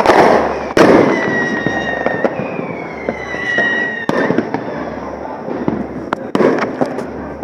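Fireworks going off: two loud bangs in the first second, then a long whistle that falls slowly in pitch for about three seconds, with sharp pops and crackles scattered throughout.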